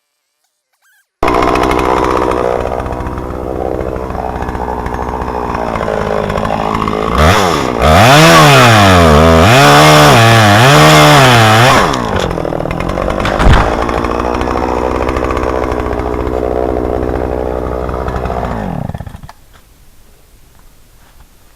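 Poulan Pro 505 two-stroke chainsaw running. It starts abruptly about a second in, and for about five seconds in the middle it is louder, its pitch rising and falling about four times as it cuts under load into a dead oak. It then settles back to a steady run, with one sharp knock partway through, and is shut off near the end, its pitch dropping as it winds down.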